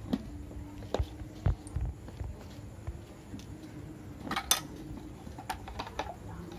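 A metal spoon clinking and scraping against a metal bowl while mixing cubed boiled potatoes and spices for aloo kabli. The clinks come singly and scattered, with the loudest a quick cluster of several about four and a half seconds in.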